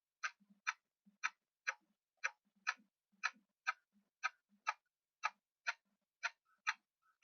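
Clock ticking in an even tick-tock: two sharp clicks about half a second apart, repeating once a second.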